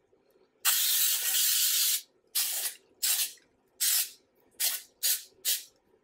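Aerosol nonstick baking spray hissing from the can onto a round cake pan: one long spray of about a second and a half, then six short bursts.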